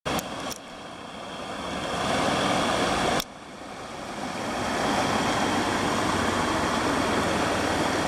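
Steady rushing of a waterfall. It is cut off abruptly about three seconds in, then swells back up and runs on evenly.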